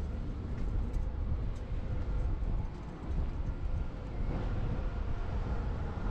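Wind buffeting the microphone on an open ship's deck, a wavering low rumble, with a faint steady hum underneath.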